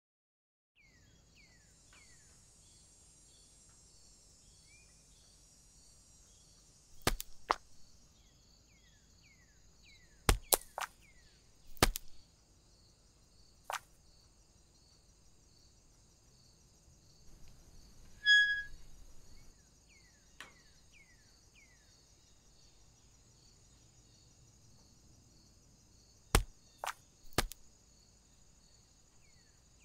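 Library forest ambience: a steady insect chorus with birds chirping. Over it come sharp knocks of acorns hitting the ground, in twos and threes at several points. There is also one brief squeak about eighteen seconds in.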